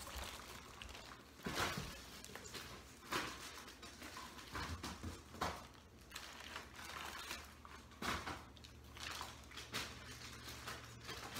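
Plastic Ziploc bags rustling and crinkling, with irregular light knocks as items are handled and set into a cardboard box.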